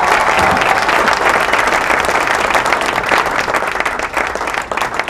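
A crowd applauding: dense clapping that thins out and gets quieter near the end.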